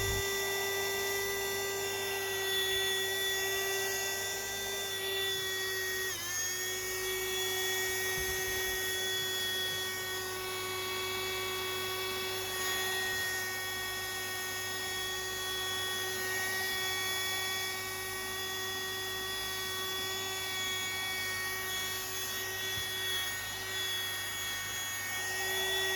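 Cordless handheld vacuum cleaner running with a steady high-pitched motor whine. About six seconds in, the pitch briefly dips and then recovers.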